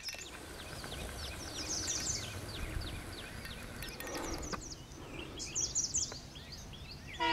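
Birds singing, a rapid series of short falling chirps repeating throughout, over a low steady rumble.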